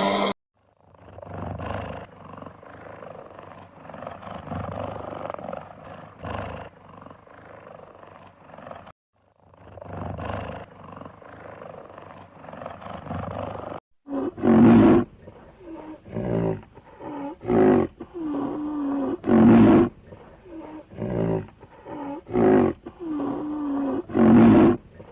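A large wild animal roaring. For the first half it makes a rough, continuous rumbling sound. From about halfway it gives a series of short, deep roars roughly a second apart, which are the loudest part.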